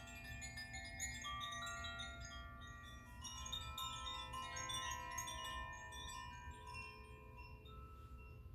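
Wind chimes stirred by hand: many bright metal notes tinkling and ringing over each other, with a fresh flurry about three seconds in, then dying away near the end, over a faint low steady tone.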